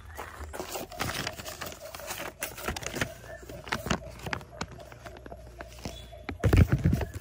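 Paper instruction sheet rustling and crackling as it is unfolded and handled over an opened cardboard box, with many small clicks and a louder low thump about six and a half seconds in.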